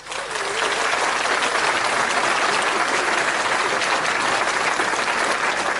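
Applause from a crowd, swelling quickly at the start and then holding steady.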